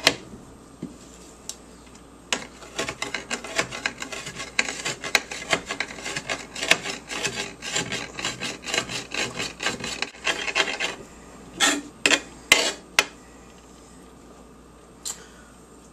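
A knife chopping and scraping lemon zest on a glass stove burner cover, a quick, even run of rasping strokes, about four a second. Near the end come a few louder separate chops.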